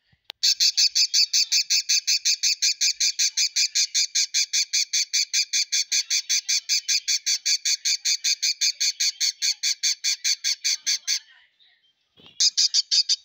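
Male budgerigar screaming inside a nest box: a fast, even run of short, sharp, high-pitched calls at about seven a second for some ten seconds, then a brief pause and another quick burst near the end.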